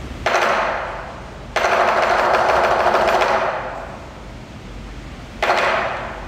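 Chinese lion dance hand cymbals crashing three times. The second crash, about a second and a half in, rings at full strength for about two seconds before dying away, and the last comes near the end.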